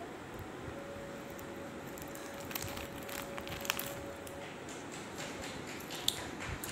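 Foil snack packet crinkling and crackling as a toddler handles it, in a few sharp crackles about halfway through and again near the end.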